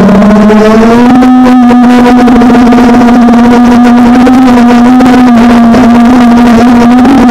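FPV quadcopter's motors and propellers whining at a steady pitch, rising slightly about a second in and then holding, very loud as picked up by the onboard camera's microphone.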